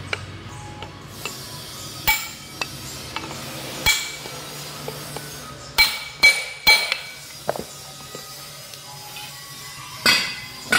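Hammer blows on a steel punch held against a riveted heavy-truck brake shoe, working its lining rivets. The sharp strikes ring and come irregularly, with three close together about six seconds in and another near the end.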